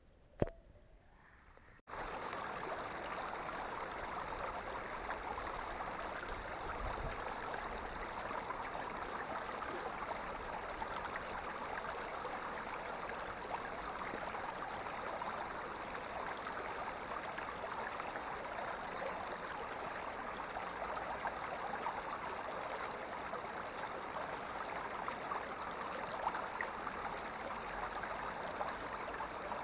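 Mountain stream pouring over a small rock-ledge cascade: a steady rushing of water that starts suddenly about two seconds in, after a single sharp click.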